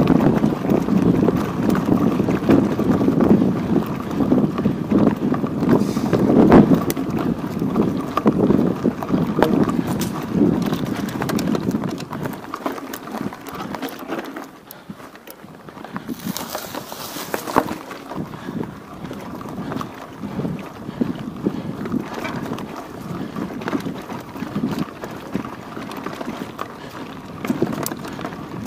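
Wind buffeting the microphone of a chest-mounted Xiaomi YI 4K action camera, a low rumbling rush with scattered knocks and rattles. It eases off about halfway through, and a brief hiss comes a little later.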